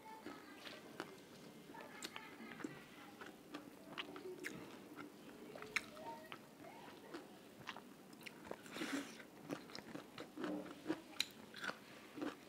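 Chewing and mouth sounds picked up close on a lapel microphone, with many small scattered clicks and a short crunchy rustle about nine seconds in.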